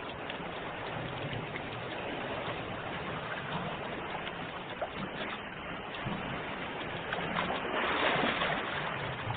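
Sea waves washing in steadily, one wave swelling louder about eight seconds in.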